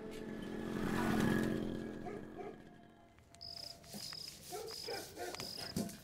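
Film score swelling and then fading out over the first three seconds. After it, night ambience with a short high insect chirp repeating about every 0.7 s, and a soft knock just before the end as a pair of shoes is set down on the floor.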